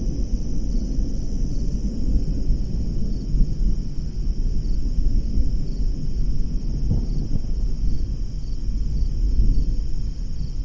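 Distant thunder rumbling low and continuously, with crickets chirping in a fast, steady pulse high above it.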